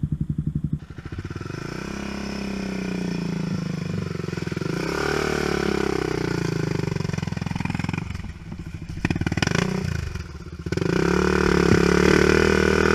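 ATV engines running and revving up and down on a trail climb, the pitch rising and falling, with a brief clatter about nine seconds in. Near the end the engine gets louder as a red Honda TRX400EX sport quad runs right alongside.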